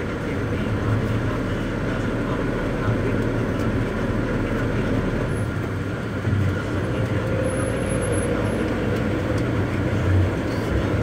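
Bus engine and road noise heard from inside the cab while driving, a steady low rumble that swells slightly now and then.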